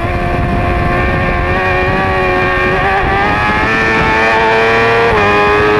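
Yamaha middleweight race motorcycle's engine running hard at high revs, heard from its own onboard camera with wind rush. The pitch climbs steadily, drops suddenly about five seconds in, and starts climbing again.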